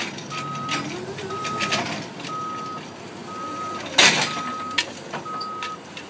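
Electric stand-up forklift's warning beeper sounding about once a second, each beep a steady single tone about half a second long, over the whine of its electric drive motor rising and falling as it moves. A loud, short rushing burst of noise about four seconds in.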